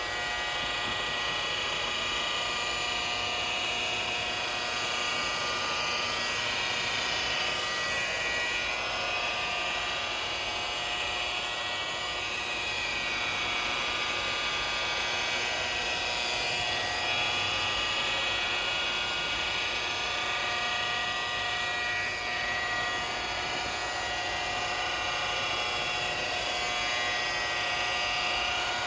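Milwaukee M18 Fuel 7-inch cordless rotary polisher running steadily with a foam pad on clear vinyl isinglass. Its motor whine wavers slightly in pitch as the pad works the polish under changing pressure.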